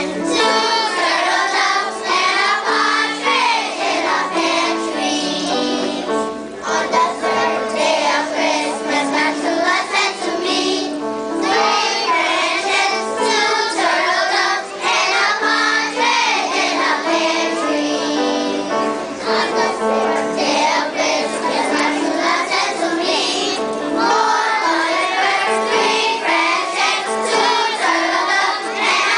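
Children's choir singing together, with keyboard accompaniment holding steady notes underneath.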